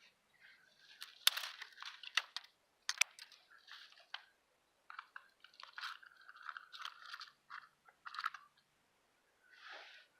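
Dry leaf litter and twigs crunching and crackling in irregular bursts, with a few sharp snaps.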